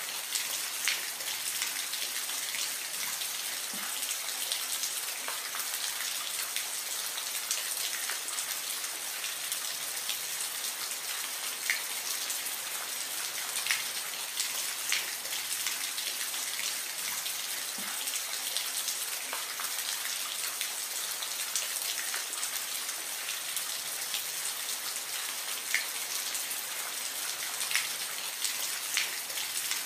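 Steady soft rain: an even high hiss with many scattered, sharp drop ticks close to the microphone.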